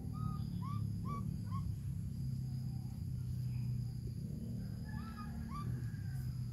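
Short chirping animal calls, four in quick succession in the first second and a half, then a few more about five seconds in, over a steady low hum.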